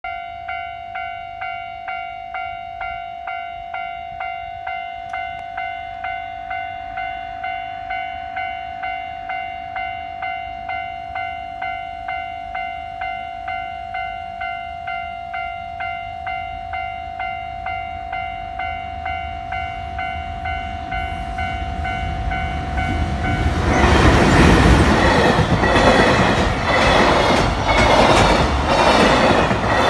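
Level-crossing warning bell ringing steadily, about two strikes a second. From about 23 seconds in, an EH500 electric locomotive and container freight train pass close by, and the loud clatter of its wheels over the rails drowns the bell.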